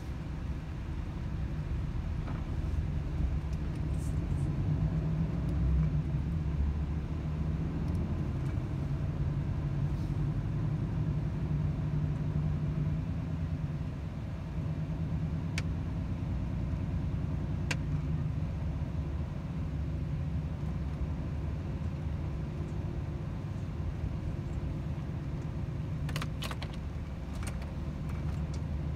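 Volvo FH 500 truck's 13-litre inline-six diesel running with a steady low drone while driving, with a few light clicks midway and a short cluster near the end.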